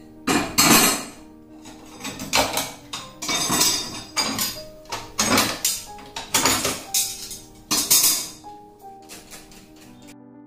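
Background music with held notes, over repeated sharp clattering knocks of kitchenware being handled; the knocks stop near the end, leaving only the music.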